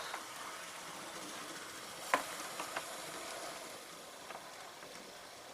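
OO gauge model 0-6-0 locomotive running on its track: a faint steady whirr with a few sharp clicks, the loudest about two seconds in.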